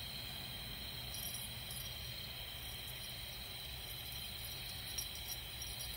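Steady high-pitched trilling of insects, with a few faint light ticks.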